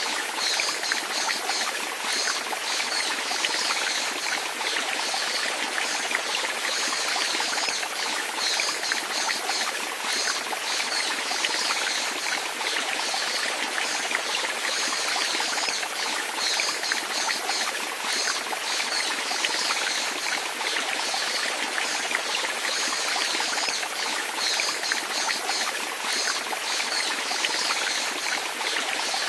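Running water trickling and splashing steadily, like a small stream or cascade, with a constant bright babble and no change over time.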